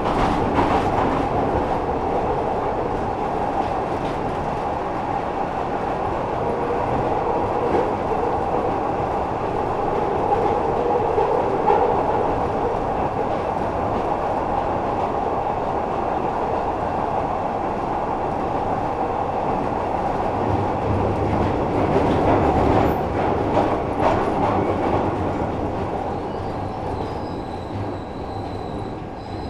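Glasgow Subway train running through its tunnel with a steady rumble and clatter of wheels on track. It grows quieter near the end, with faint high tones coming in, as the train starts to slow.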